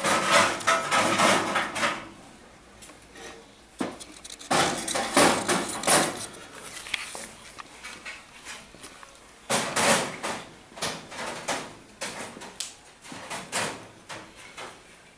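Sheet steel and locking-pliers clamps being handled on a workbench, scraping and clanking in three bursts as a patch panel is fitted to a motorcycle fender.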